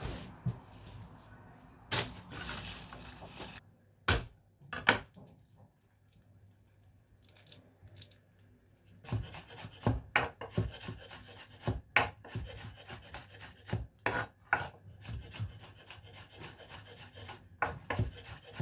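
Kitchen knife chopping on a wooden cutting board in quick, irregular strokes, starting about halfway through. Before that there are a few separate knocks, then a quieter stretch.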